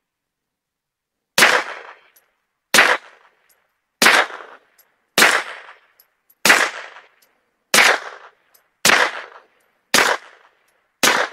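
Suppressed 9mm pistol, a Taurus G3 Tactical with a Rugged Obsidian 45 suppressor on a 9mm end cap, firing 115-grain Aguila rounds: nine shots at a steady pace of about one every 1.2 seconds, each a sharp report with a short fading tail.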